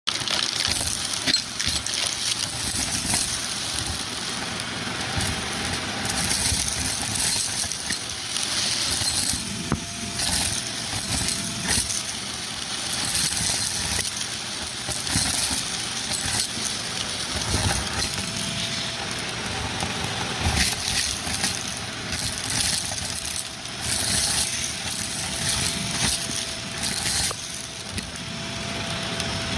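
Vacuum cleaner running with a crevice tool on a metal wand, its motor holding a steady hum while crunchy debris is sucked up, crackling and clinking through the wand.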